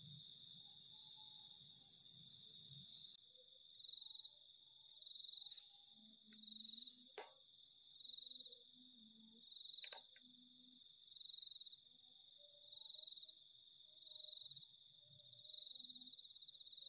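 Night chorus of crickets and other insects, a steady high-pitched trill with a slow regular pulse, plus a couple of faint sharp clicks.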